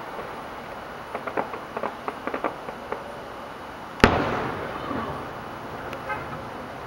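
Fireworks: a quick run of sharp crackling pops for about two seconds, then one loud shell burst a little past the middle that trails off in a rumble.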